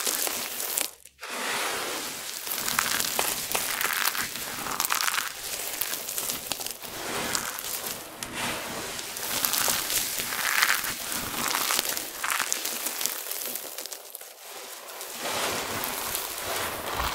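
Crumbled, starch-dusted soap pieces crunching and crackling as hands scoop, squeeze and rake through a pile of them and let them trickle through the fingers. There is a brief break about a second in.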